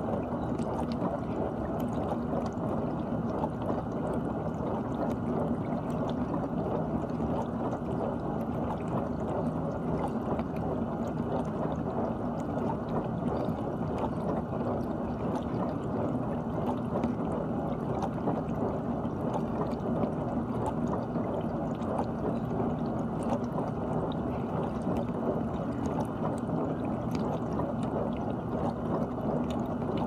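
GE dishwasher running its cycle: a steady rush of water spraying and sloshing inside the tub, with a steady low hum beneath it.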